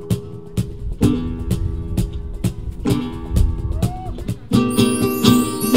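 Flamenco-style acoustic guitar music over a sharp percussive beat of about four strokes a second. The music grows fuller and brighter about four and a half seconds in.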